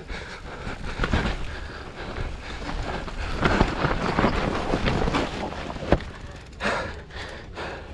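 Mountain bike riding down a rough enduro trail: wind rushing over the action camera's microphone, tyres on dirt and the bike rattling, with a sharp knock just before six seconds in.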